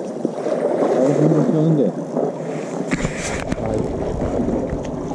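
Voices talking for about the first two seconds, then a sudden low rumble of wind and handling noise on the microphone with a few sharp clicks as the camera is moved.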